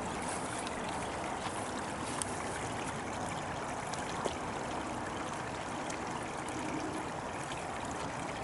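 Running water from a stream, a steady even rush, with a couple of faint ticks about two and four seconds in.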